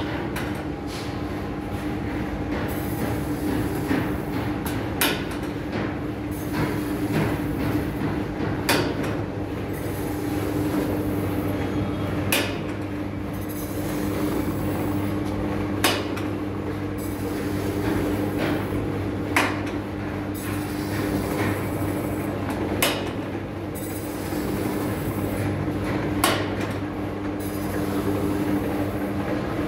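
Semi-automatic masking tape slicer running: its 1 hp single-phase motor spins the tape log on the chuck with a steady hum. A sharp click comes about every three and a half seconds as the hand-pressed blade and sliding carriage are worked for each slice.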